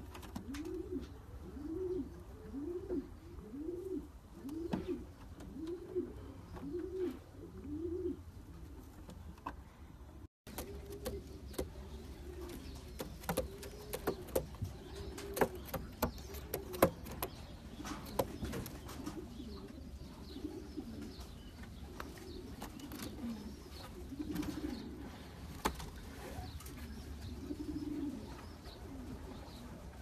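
Racing pigeons cooing: a steady string of rising-and-falling coos at first, then after a brief break, looser, more irregular cooing with scattered sharp clicks.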